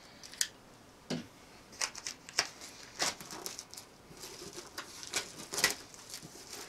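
Box cutter slitting the tape seals on a cardboard box, with the box being turned and handled: a run of short scratchy cuts, scrapes and knocks, the loudest about five and a half seconds in.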